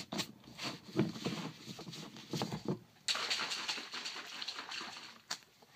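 Plastic shaker cup being capped and shaken: scattered taps and rattles of the lid and cup, then about two seconds of steady sloshing as pre-workout powder is mixed into water.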